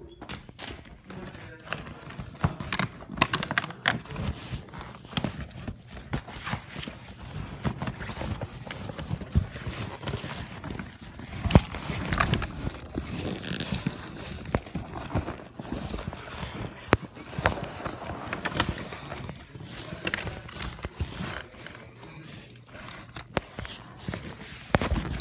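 Handling noise on a phone's microphone: rubbing and rumbling with many irregular knocks and clicks.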